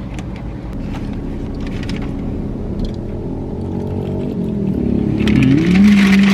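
Low steady rumble inside a car's cabin. About four and a half seconds in, a long hummed "mmm" rises in pitch and is held, a person savouring a mouthful of pastry while chewing.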